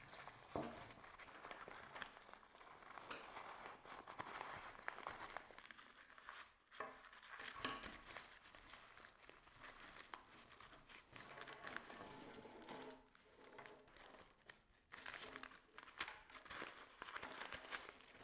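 Faint crinkling and rustling of a deflated Restube inflatable buoy being zigzag-folded and stuffed into its belt pouch by hand, with a few light ticks.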